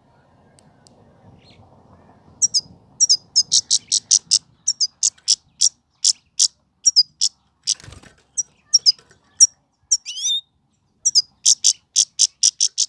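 Himalayan (grey-headed) goldfinch singing: starting about two seconds in, a long, fast run of short, sharp, high twittering notes, broken by a few quick slurred phrases and one falling note. A brief soft rustle comes in the middle.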